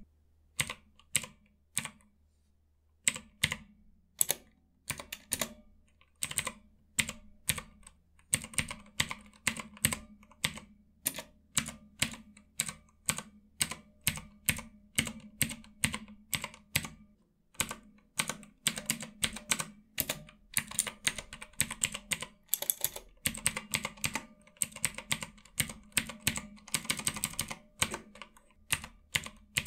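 Keys being pressed on a ROTTAY mechanical numpad with Outemu Blue clicky switches, each keystroke a sharp click. The presses come about one or two a second with a pause of about two seconds near the start, then pick up into fast, steady typing, densest toward the end.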